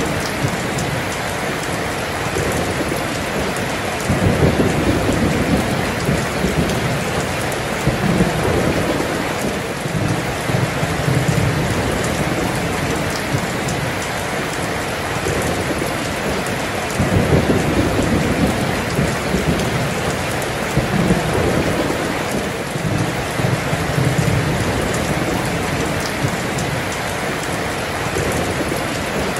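Heavy rain pouring steadily, with rolling thunder rumbling low in repeated swells that rise and fade every few seconds.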